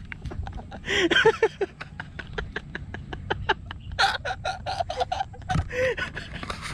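A person laughing breathlessly in quick, panting pulses, broken by short voiced bursts of laughter.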